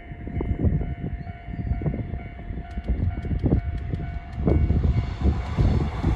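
Level crossing warning bell ringing with a steady tone while a 115-series electric train approaches, its rumble building into the noise of the train reaching the crossing in the last second or so.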